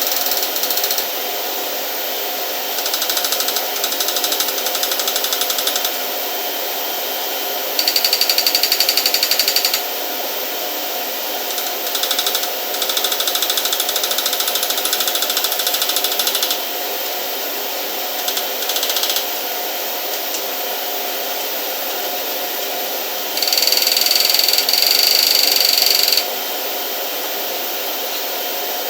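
A handheld power tool runs in repeated bursts of a few seconds, about five times, over a steady machinery hum. Two of the runs, about a third of the way in and near the end, are louder and carry a high whine.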